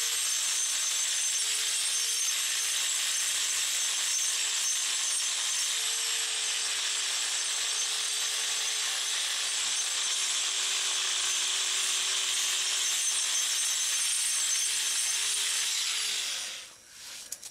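DeWalt angle grinder grinding down the rough, uneven edge of a concrete porch patch: a steady high whine over gritty grinding noise. It is switched off about a second before the end and winds down.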